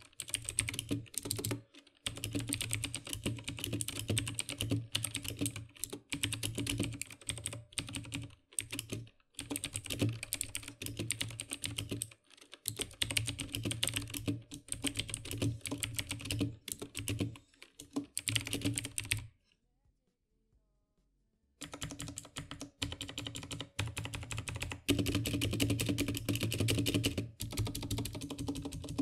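A mechanical keyboard being typed on fast, a continuous stream of key clacks, with a break of about two seconds about two-thirds of the way through.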